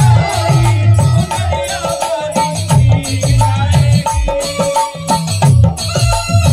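Live Gangaur folk song: a woman singing into a microphone over held harmonium tones and a steady, repeating drum beat.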